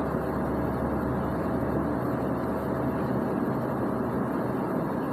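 Steady background noise with a low hum.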